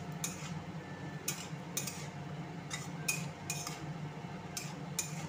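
Metal spatula scraping and knocking against a metal kadhai as chopped radish leaves are stirred, in irregular strokes about two a second, over a low steady hum.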